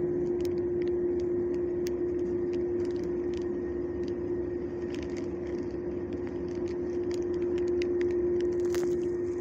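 Steady machine hum holding one low pitch, with faint light clicks scattered over it.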